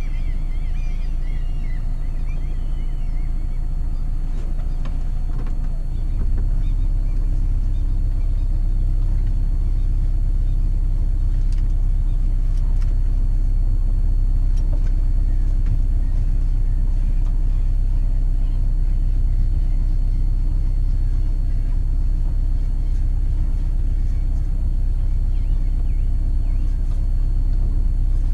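Sailing yacht's inboard engine running steadily at low speed, getting louder about six seconds in as the boat manoeuvres to dock. A few birds chirp near the start.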